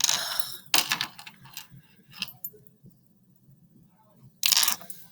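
Four short bursts of rustling, crunching noise: two at the start and two near the end, with quiet between.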